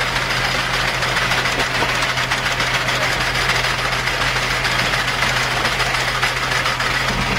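Steady machinery drone with a constant low hum under it, unchanging throughout.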